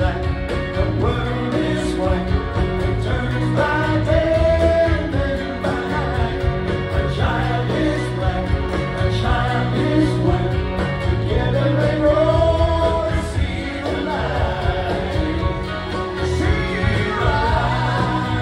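Live rock band playing a song, with lead vocals sung over electric guitars, bass, drums and keyboard.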